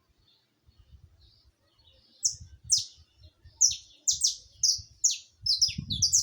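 Saffron finch singing: after a couple of quiet seconds, a run of loud, sharp notes that each slide down in pitch, about two a second, coming faster near the end.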